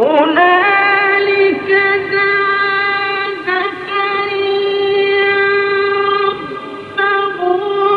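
A man reciting the Quran in the melodic, drawn-out tajweed style, holding one long note that wavers now and then, starting abruptly out of silence. The sound has the narrow, dull range of an early-1950s recording.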